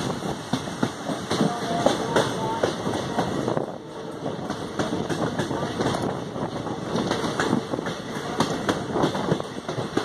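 Amaravati Express passenger train running, heard from aboard: a steady rumble full of rapid irregular clicks and rattles of wheels on the rails and the coaches. Indistinct voices are heard in the first few seconds.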